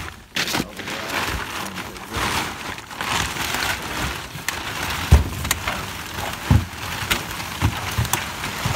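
Green plastic tarp rustling and crinkling as it is hauled and bunched over a load of dry leaves and brush, with several dull thumps in the second half.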